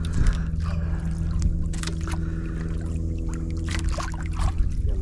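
Small outrigger boat's engine idling steadily at an even pitch, with a few light clicks and knocks over it.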